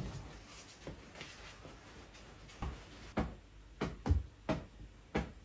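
A sharp knock right at the start, then a run of short, irregular knocks and clicks, roughly two a second, from about two and a half seconds in: household handling noises in a small room.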